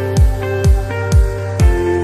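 Background music with a steady beat of deep drum thumps about twice a second under sustained melodic notes.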